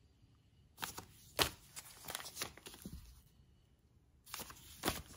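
Paper sewing-pattern envelopes rustling and crinkling as they are handled and swapped, in short bursts about a second in, around two seconds in, and again near the end.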